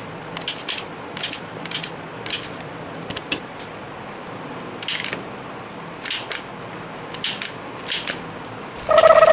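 A toy disc-shooter gun fires small plastic discs, making about a dozen sharp plastic clicks at irregular intervals, some from discs striking plastic toy bowling pins. Near the end a loud warbling electronic tone starts.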